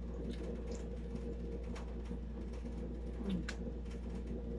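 A person chewing mouthfuls of lato (sea grapes) and rice eaten by hand, with a few soft mouth clicks, over a steady low hum.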